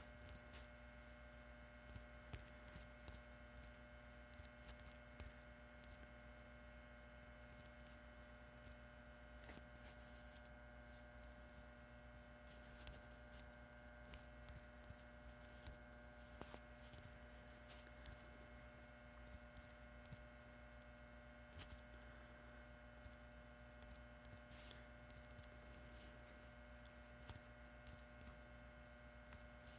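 Near silence: a low steady electrical hum, with faint irregular taps every second or so from a finger typing on a phone's touchscreen keyboard.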